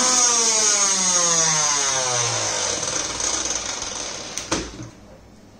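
Butterfly Matchless 750 W mixer grinder with its centrifugal juicer jar fitted, the motor spinning down: its whine falls steadily in pitch and fades over about three seconds. A sharp click comes near the end.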